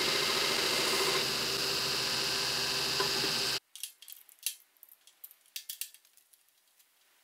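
Steel plate being ground on a homemade 2x72 belt grinder, a loud steady rasp that stops abruptly about three and a half seconds in: the edges being beveled for welding. Then a few light clicks and taps of steel pieces being handled.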